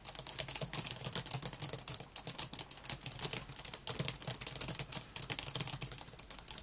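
Fast typing on a computer keyboard: a quick, uneven run of keystroke clicks, several a second, that stops at the very end.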